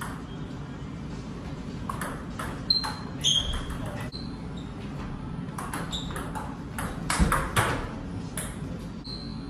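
Table tennis ball being struck by bats and bouncing on the table: irregular sharp knocks, some bounces leaving a short ringing ping. The loudest cluster of hits comes a little after seven seconds.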